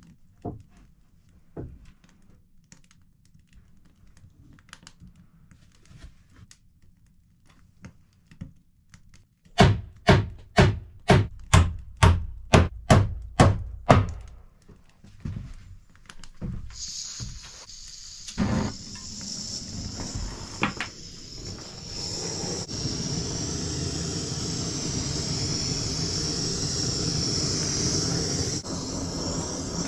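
Faint knocks as wooden boards are handled, then about a dozen quick hammer blows on the wooden plank seat of a bench, roughly two or three a second. A few seconds later a small handheld gas blowtorch starts with a steady loud hiss as it scorches a turned wooden post.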